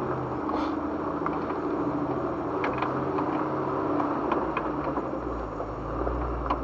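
Jeep Wrangler engine running steadily at crawling speed over a rocky trail, heard from inside the cabin, with scattered short knocks and rattles.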